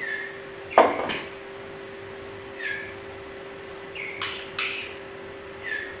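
Young white-rumped shamas calling: short falling notes every second or two, with louder harsh squawks about a second in and again just past four seconds, while one is held in the hand to have a leg ring fitted. A steady faint hum lies underneath.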